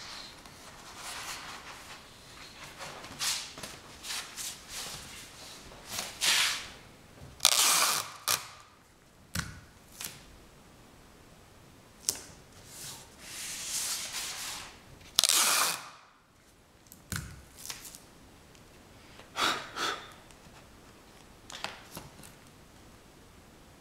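Irregular close-up clicks and short rustling swishes, one after another with quiet gaps between, the loudest about a third and two thirds of the way through.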